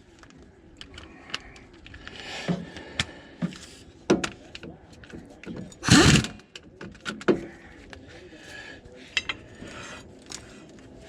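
Scattered light metallic clicks and clinks of bolts and hand tools as the inner axle bolts are threaded in by hand, with one louder short thump about six seconds in.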